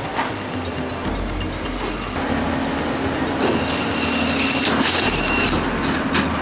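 Pallet strapping machine (Kemapack RP-2100) starting its cycle as the strap lance drives out under the pallet: a motor hum with a high whine that comes in about two seconds in and again in the middle, over a steady background noise.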